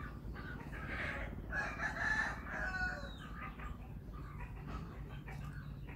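A rooster crowing once, starting about a second in and lasting around two seconds, over a steady low hum.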